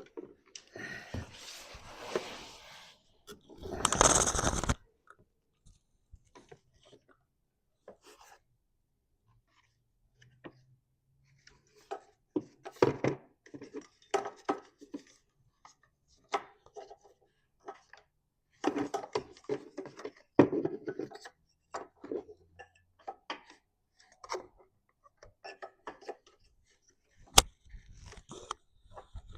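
Hands working on mower parts with tools: irregular scrapes, clicks and knocks, with a louder rasping, rustling burst about four seconds in and a sharp click near the end.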